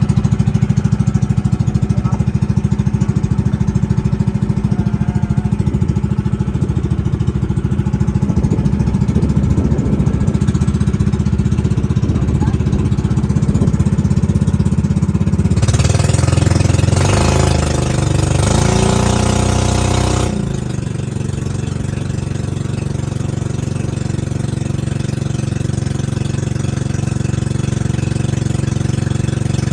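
The boat's 13 hp engine running steadily with a rapid even pulse. About halfway through, its speed changes up and down several times for a few seconds under a rushing noise, then it settles back to a steady, slightly quieter note.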